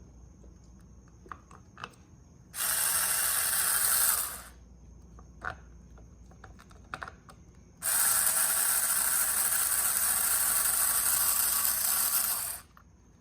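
Ratchet wrench clicking rapidly in two runs, a short one a few seconds in and a longer one of about five seconds, working a screw on the handlebar's switch housing.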